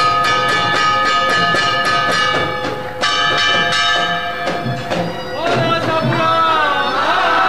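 Temple bells rung fast during aarti, about four strokes a second with long ringing tones, pausing briefly a few seconds in. Near the end the bells thin out and a crowd's voices rise in shouting and chanting.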